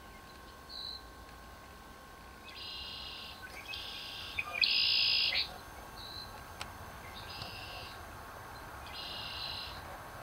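Five short, buzzy, high-pitched animal calls, each under a second long, with the third the loudest and two brief chirps in between, from a small creature calling in the marsh.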